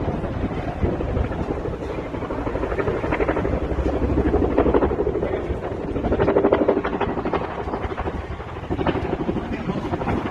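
Helicopter in flight, its rotor blades beating in a rapid, steady pulse over the engine noise, swelling and fading slightly.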